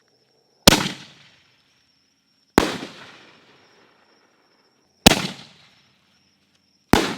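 Aerial firework canister shell going off after being fired from a mortar tube: four sharp bangs about two seconds apart, each trailing off in a long echo.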